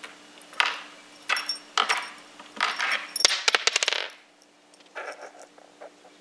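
Light clattering and rattling of a small cat toy batted by a cat across hard surfaces. Separate knocks come first, then a quick run of sharp clicks about three seconds in, and softer scraping near the end.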